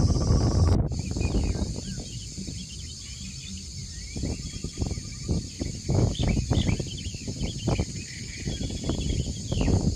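Outdoor ambience of small birds chirping and a steady high insect drone over an uneven low rumble. The rumble is strongest in the first second, with a brief break in the sound just under a second in.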